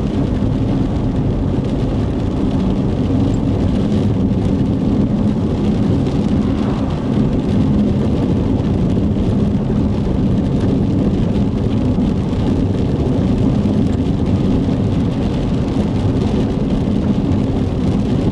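Steady rumble of a moving vehicle heard from inside the cab: road and engine noise with a low hum running underneath.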